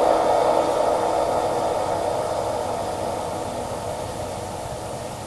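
Steady electronic static hiss, fading slowly and evenly.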